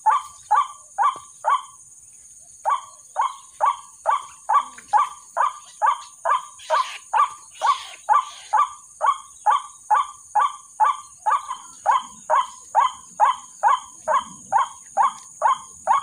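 White-breasted waterhen calls: one short 'kwak' note repeated very evenly about twice a second, with a short break about two seconds in. This is the monotonous calling used as a lure to draw waterhens into the snares. Twice near the middle, vegetation rustles briefly.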